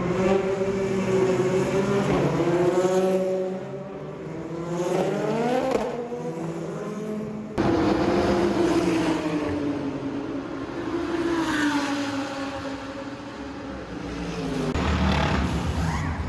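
Naturally aspirated race car engines running at speed on the circuit, the pitch rising hard as a car accelerates. The sound changes abruptly about seven and a half seconds in to another car's engine.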